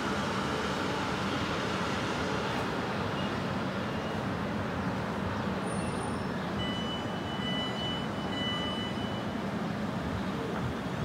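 Electric multiple-unit train running with a steady, even rumble. A high steady tone sounds briefly twice a little past the middle.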